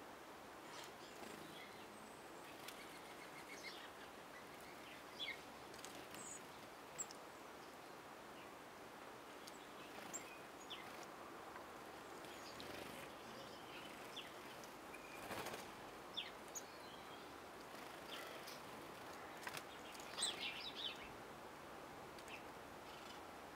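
Faint, scattered chirps and short calls of small garden birds over a steady outdoor hiss, with a brief swish about fifteen seconds in and a quick flurry of chirps about twenty seconds in.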